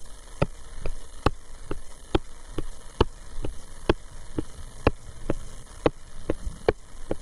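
Light, evenly paced clicks, about two a second, from the pointing device marking the screen, over a steady electrical hum.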